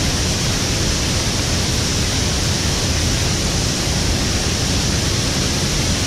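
Rushing water of a small waterfall and its stream, a steady, even hiss.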